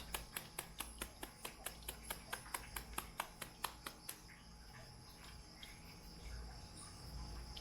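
Rapid knife chopping of banana heart on a cutting board, about five quick chops a second, stopping about four seconds in. A steady high-pitched trill continues behind it.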